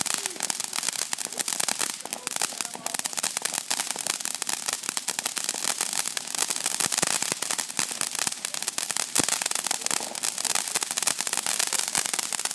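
Ground fountain firework spraying sparks: a steady loud hiss packed with rapid crackling pops.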